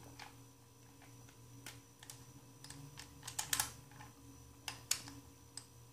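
Faint scattered clicks and rattles of a Garmin Virb Elite action camera and its plastic mount being handled, loosened and repositioned, with a quick run of clicks about three and a half seconds in and a sharper click near five seconds.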